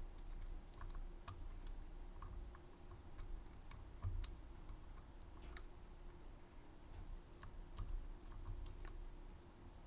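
Light, irregular clicks and taps of small metal tools working a Medeco M3 six-pin lock, with faint handling rumble; the sharpest click comes about four seconds in.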